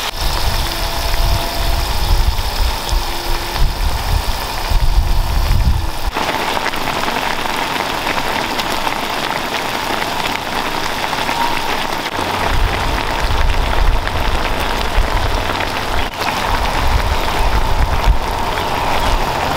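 Seafood and wine sauce boiling hard in a cast-iron skillet: a dense, steady bubbling and sizzling hiss. A low rumble runs under it for the first six seconds or so and comes back about twelve seconds in.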